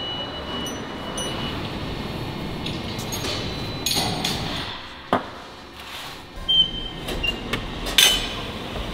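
Steady factory background noise, then a run of sharp metallic clanks and clinks through the second half, the loudest about five seconds in and near the end.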